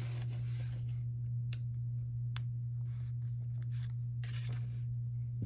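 Faint rustling, scraping and a few light clicks of Pokémon trading cards being handled and slid out of a freshly opened foil booster pack, over a steady low electrical hum.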